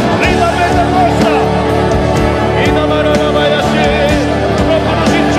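Worship music from a Pentecostal revival service: sustained chords with a steady beat and voices singing over them.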